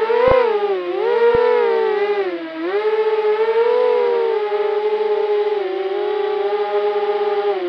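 Motors and propellers of a 250-size FPV quadcopter whining, heard through its onboard RunCam 2; the pitch rises and falls with the throttle, dips about two and a half seconds in, then holds fairly steady.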